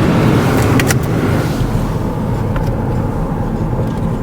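Car cabin noise: steady low road rumble with the air-conditioning blower hissing. A few clicks come about a second in, and the blower hiss then drops away as the air conditioning is turned down.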